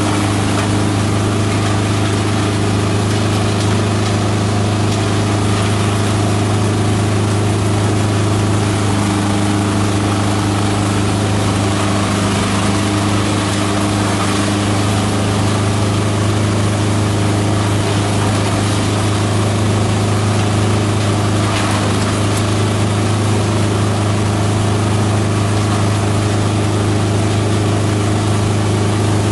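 A multi-purpose chopper-shredder running steadily, with a constant low drone and a few steady higher tones from its motor and spinning rotor.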